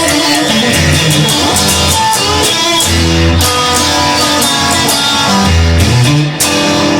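Rock band playing an instrumental passage without vocals: guitars over a moving bass line and drums.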